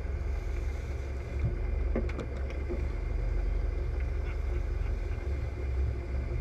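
Rigid-hull inflatable boat running at speed: a steady low rumble of engine and rushing air, with a few faint clicks about two seconds in.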